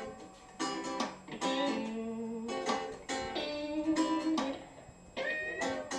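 Music led by a strummed acoustic guitar: chords struck and left to ring, in phrases with brief pauses between them.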